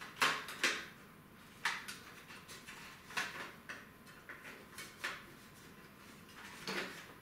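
Thin computer cables being pulled through and rubbing against the sheet-steel side of a PC case: short scrapes and rustles at uneven intervals, about half a dozen in all.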